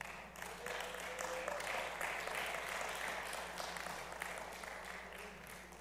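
Congregation applauding, swelling over the first couple of seconds and dying away near the end.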